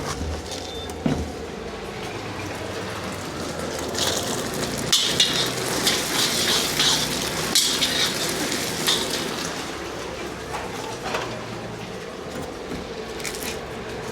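Food sizzling in a hot wok, with a metal ladle scraping and clanking against it. The sizzle gets louder for several seconds in the middle.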